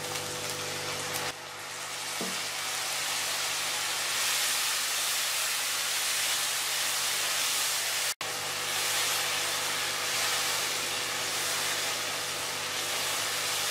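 Onion-tomato masala sizzling steadily in a hot frying pan after water from boiled chana dal is poured in, as it is stirred with a spatula; the sizzle cuts out for an instant about eight seconds in.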